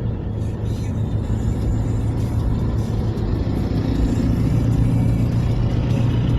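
Steady low drone of a car driving, growing a little louder about two-thirds of the way through.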